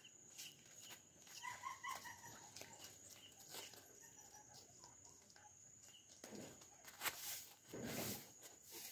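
Faint outdoor ambience: a steady high-pitched insect drone, a few short animal chirps about a second and a half in, and two brief rustling noises later on.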